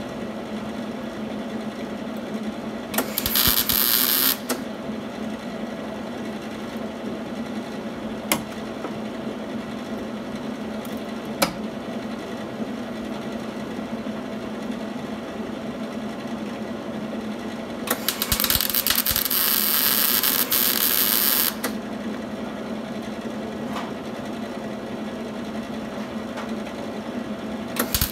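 MIG welder arc crackling on car-body sheet steel in separate welds: a short one about three seconds in, a longer one of about three and a half seconds past the middle, and another starting right at the end. A steady hum runs between the welds, with a couple of sharp clicks.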